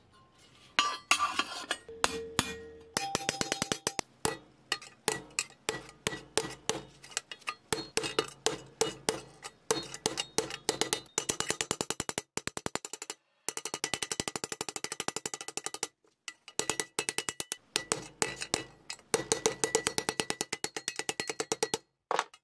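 Claw hammer tapping the pressed-steel dump bed of a 1962 Tonka toy on a bench anvil to straighten the sheet metal. It makes quick runs of metal-on-metal taps, several a second, each ringing briefly, broken by a few short pauses.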